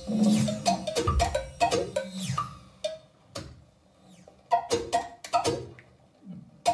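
Live experimental music: hand percussion struck with mallets in irregular, sparse knocks, each with a short ringing tone. A low sustained tone under the opening strikes drops out about two and a half seconds in, leaving the knocks spaced out with quiet gaps.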